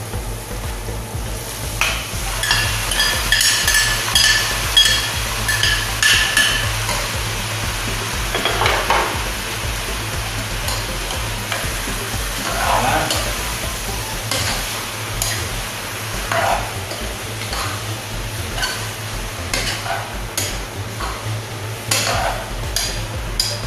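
Flaked shark meat sizzling in a hot pot as it is stirred with a metal ladle, which scrapes and clicks against the pot. A high squeak runs for a few seconds near the start.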